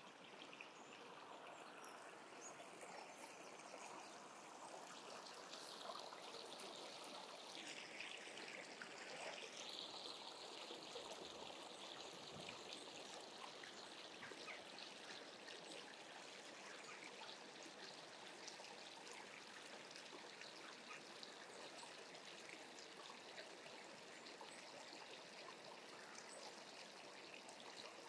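Faint, steady trickle and babble of a small stream.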